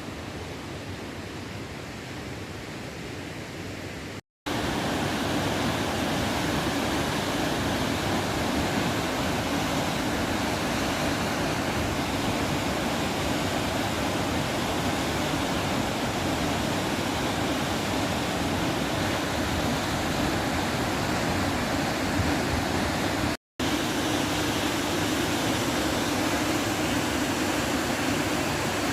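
Steady rush of a mountain stream's flowing water. It cuts out briefly about four seconds in, comes back louder, and cuts out briefly again near the end.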